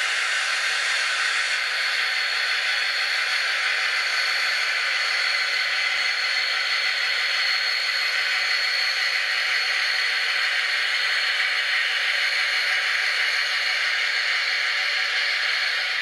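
Model DB class 219 diesel locomotive running steadily past: a constant hiss-like drone from its sound decoder and running gear, with a faint steady high whistle.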